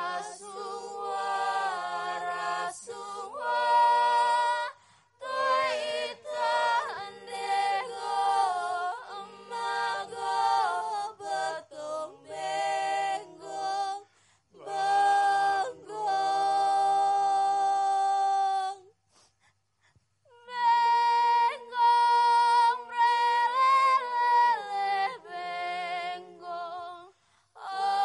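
Unaccompanied voices singing a slow, chant-like song in held phrases, with a lower voice sustaining beneath; the singing breaks off for about a second two-thirds of the way through, then resumes.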